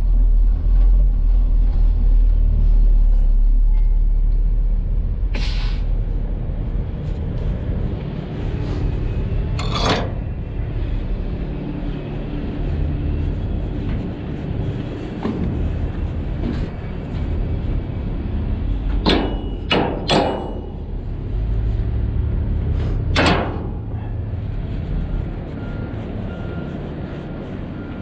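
Heavy rail cars rumbling in a rail yard, with sharp metallic clanks and bangs now and then: single ones about a fifth and a third of the way in, three in quick succession about two-thirds in, and one more shortly after.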